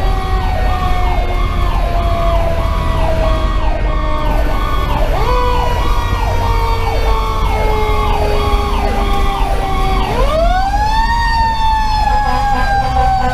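Fire engine sirens heard from inside the cab. An electronic siren runs on a fast yelp, about two sweeps a second. Over it a Federal Q2B mechanical siren slowly winds down in pitch, spins back up with a rising wail about ten seconds in, then slowly falls again, while the Detroit Series 60 diesel runs underneath as a low rumble.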